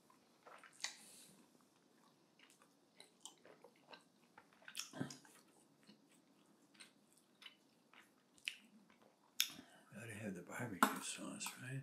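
A person chewing roast chicken close to the microphone, with scattered lip smacks and small wet mouth clicks. Over the last two seconds the mouth sounds grow louder and denser.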